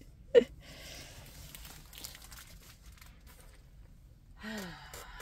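Faint crinkling and rustling of packaging being handled, with scattered small clicks. A short voiced murmur comes just after the start and another, falling in pitch, near the end.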